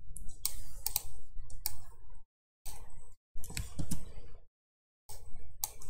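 Computer keyboard keystrokes and mouse clicks: a few short, sharp clicks in small clusters, with dead silence between them.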